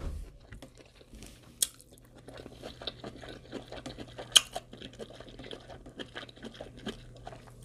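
Close-miked chewing: soft wet mouth sounds and small clicks, with two sharper crunches, one about one and a half seconds in and one about four and a half seconds in, over a steady low hum.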